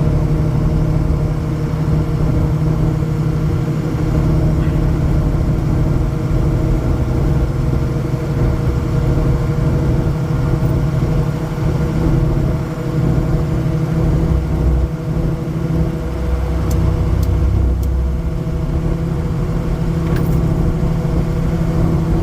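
2008 Ford E350's 6.0 Powerstroke V8 turbo-diesel cruising at about 62 mph, heard from inside the cab: a steady engine drone over road and tyre rumble.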